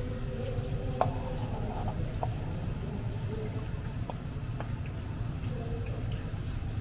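Food-stall kitchen sounds with dripping liquid over a steady low hum, and a few light clicks, the sharpest about a second in.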